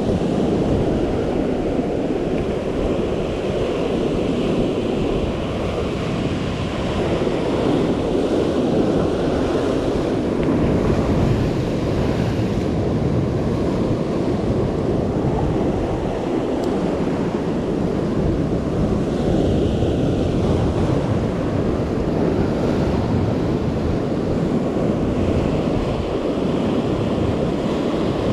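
Ocean surf breaking and washing over a rocky shoreline in a steady, continuous rush, with wind buffeting the microphone.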